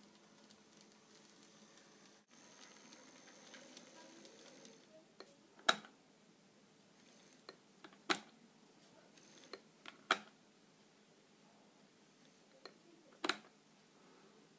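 N gauge model railway during shunting: a faint motor whine for the first few seconds, then four sharp mechanical clicks about two seconds apart, with smaller ticks between them.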